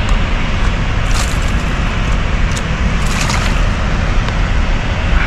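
A hooked small dourado splashing at the water's surface in short bursts, about a second in and again around three seconds in, over a steady low rumble.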